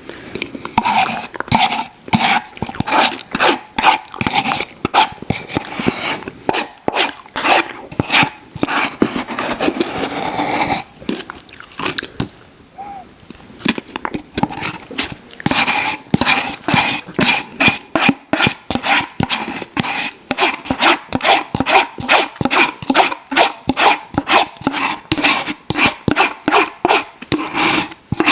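Close-miked mouth sounds of eating ice cream: wet chewing and lip smacking in a quick rhythm of about three to four smacks a second, pausing for a few seconds midway.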